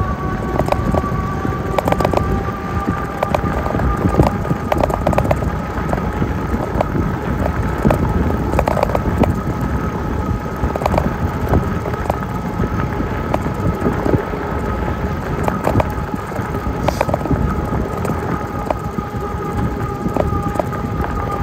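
Jasion e-bike being ridden: the motor gives a steady whine that creeps slightly higher in pitch, over a rumble of wind and tyre noise. Frequent short clicks and rattles run through it.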